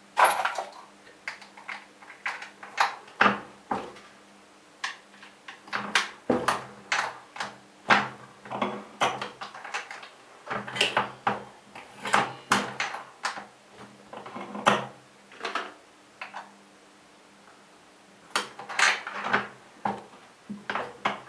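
LEE four-hole turret press with auto-index being worked by hand: a run of irregular metal clacks and clicks from the ram strokes and turret indexing, with a faint steady hum underneath.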